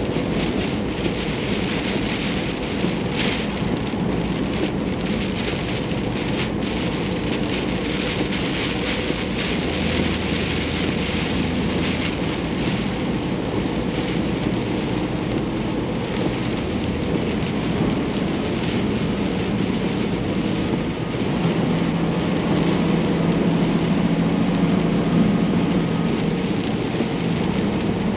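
Heavy rain pelting a moving vehicle in a storm, a dense steady patter, over a steady low drone that swells slightly near the end.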